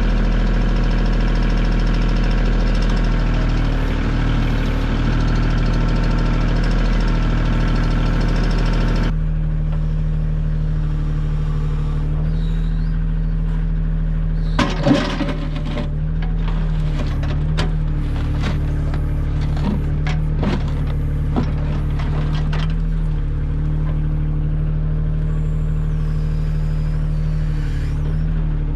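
Kioti compact tractor's diesel engine running steadily while its backhoe works. About nine seconds in the busier, higher part of the engine sound drops away and the engine settles. A loud clank comes about fifteen seconds in, followed by scattered knocks over the next several seconds.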